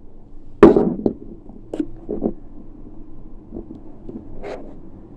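A loud, sharp knock about half a second in, followed by a few lighter knocks and clicks: objects being handled and set down close to the microphone.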